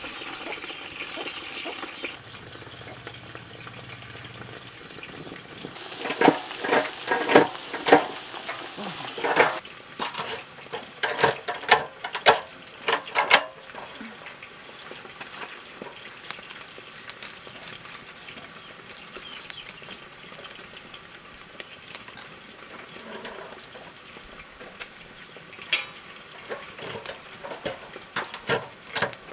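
Potato chips frying in hot oil with a steady sizzle. A metal utensil knocks and scrapes against the pan in quick runs of strokes, two of them in the first half and a shorter one near the end.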